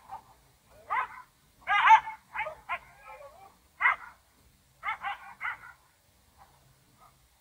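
A dog barking and yelping in short bursts of pitched calls for about six seconds, trailing off to faint yips near the end.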